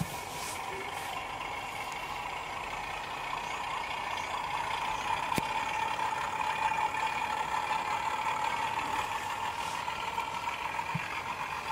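Garden-railway model train running along the track: a steady whine over a hiss of wheels on rail, growing louder as it nears and dipping slightly in pitch, with one sharp click about five seconds in.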